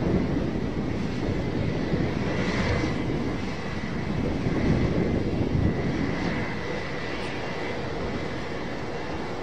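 Twin rear-mounted turbofan engines of a business jet running at idle: a steady rumble with a thin high whine held on one pitch and a fainter lower hum.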